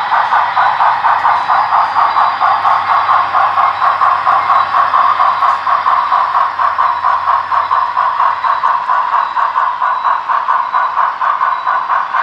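HO scale steam locomotive's onboard sound decoder chuffing steadily, about four even chuffs a second, through its small speaker as the train runs.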